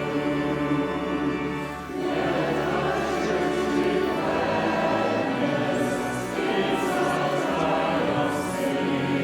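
Choir singing in long held phrases, with short breaths between phrases about two seconds in and again around six seconds in.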